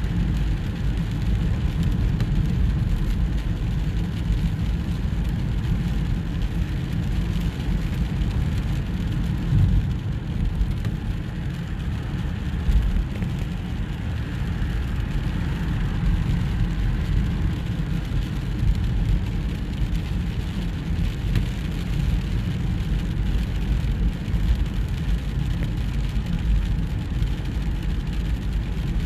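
Steady low rumble of a car driving on a wet road, heard from inside the cabin, with rain on the windscreen.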